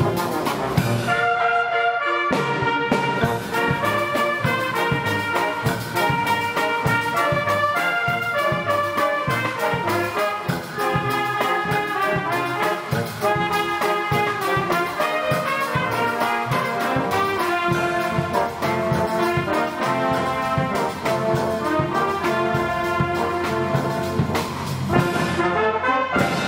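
Youth symphony orchestra playing, with trumpets and trombones prominent over the strings and a percussion beat running under the music.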